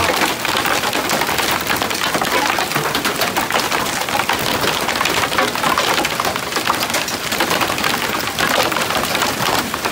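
Hail falling hard: a dense, steady clatter of many small impacts as hailstones strike a wooden deck and the yard.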